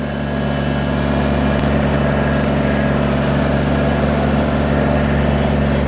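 Kubota BX23S compact tractor-loader-backhoe's three-cylinder diesel engine running steadily at an even pitch.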